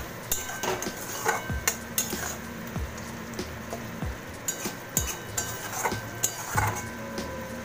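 Spatula scraping and knocking against a metal kadai while spice paste is stirred and fried in oil, with a faint sizzle under it: the masala being cooked down until the oil separates. The knocks come irregularly, a couple a second, with a pause of about a second in the middle.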